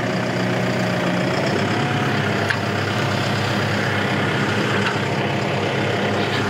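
TYM T1104 tractor's diesel engine running steadily at idle, with a thin whine over it that rises slightly in pitch about a second and a half in. A single click about two and a half seconds in.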